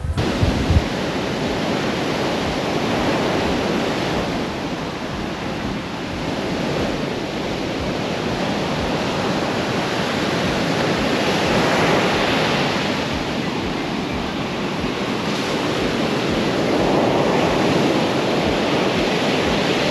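Heavy monsoon surf breaking on a sandy beach: a continuous rushing wash that rises and falls as the waves come in. Wind gusts rumble on the microphone underneath.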